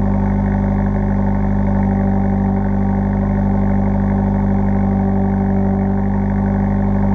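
Mercedes-AMG CLA45's turbocharged 2.0-litre four-cylinder idling cold through its stock exhaust, a steady, even drone.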